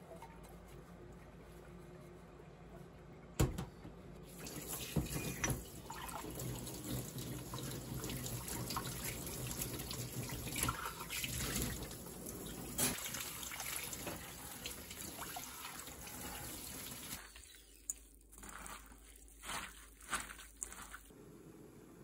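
Tap water running steadily into a stainless-steel sink as drinking glasses are rinsed, after a sharp knock a few seconds in. The running water stops about two-thirds of the way through, leaving a few short knocks and splashes as the glasses are handled.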